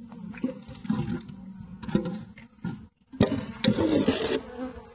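Honeybees buzzing with a steady low hum from a weakened colony whose bees are dying on the hive floor. A few sharp knocks and scrapes sound over the hum, and the sound drops out briefly about three seconds in.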